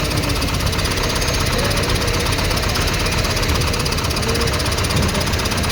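Large diesel engine running steadily, with a fast low clatter.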